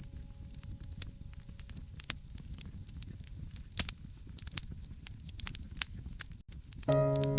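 Fireplace crackling: scattered sharp pops and snaps over a low rumble. Near the end, music with long held notes comes in.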